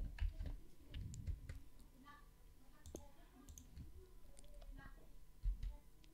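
Faint, scattered clicks of a computer mouse and keyboard at a desk, with a few low thumps.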